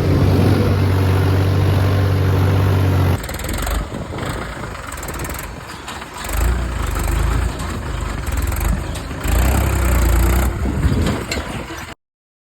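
Mahindra tractor's diesel engine running at a steady pitch under throttle. After an abrupt change about three seconds in, it goes on rougher, with two low surges of power partway through and near the end.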